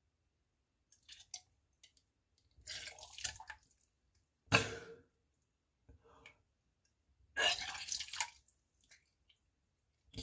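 Wet drips and splashes from spitting out the last of the vomit and saliva after vomiting: a handful of short bursts, the loudest and sharpest about four and a half seconds in.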